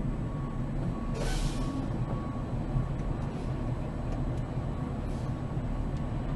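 Steady low rumble of a car driving, heard from inside the cabin as engine and road noise, with a short hiss a little over a second in.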